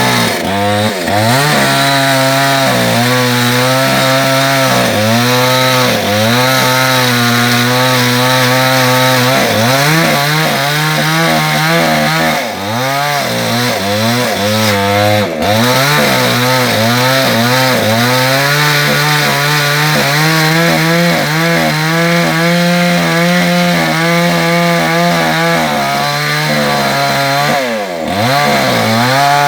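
Chainsaw running under load, cutting through wood; its engine speed repeatedly sags as the chain bogs down in the cut, then climbs back.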